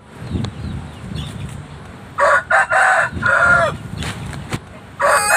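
Rooster crowing: after a low rumble, a loud cock-a-doodle-doo about two seconds in, two short notes and then a long drawn-out one, with a second crow starting near the end.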